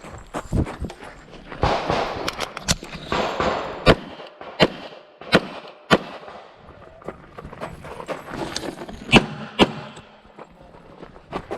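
Handgun shots fired singly and in quick pairs at irregular intervals, about a dozen sharp cracks in all, with rustling noise between the strings.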